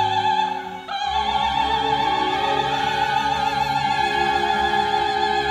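Operatic soprano holding a long high note with wide vibrato over a string orchestra's sustained chord. About a second in, the voice briefly breaks off and re-attacks the note as the chord beneath shifts lower, then holds steadily.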